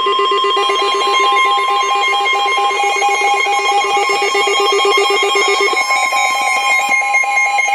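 Emergency alert tones announcing a severe thunderstorm warning: a steady high tone with fast warbling trills layered over it. The lower trill stops about six seconds in.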